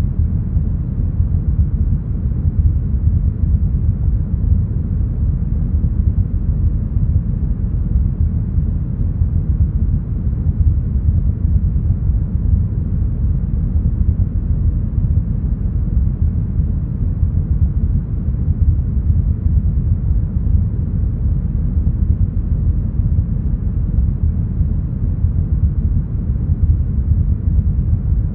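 Deep, smoothed brown noise: a steady, even low rumble of hiss with the highs rolled off, unchanging throughout.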